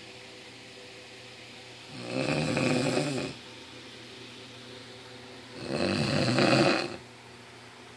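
Snoring: two long, loud snores, each lasting about a second and a half, roughly three and a half seconds apart, with a quiet breath between them.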